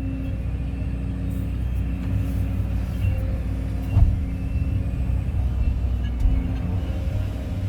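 A Kobelco 320-class excavator's diesel engine running steadily, with a sharp knock about four seconds in and a smaller one a couple of seconds later.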